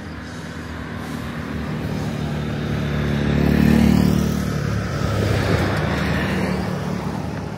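Road traffic passing close on a street: a pickup truck and a motorcycle go by with engine and tyre noise. The noise builds to its loudest about four seconds in, then slowly fades.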